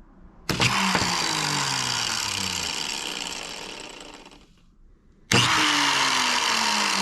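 Ryobi angle grinder's motor starting abruptly at full speed, running, then winding down and stopping, and started again about five seconds in. The motor itself works; the fault is a burnt-out switch.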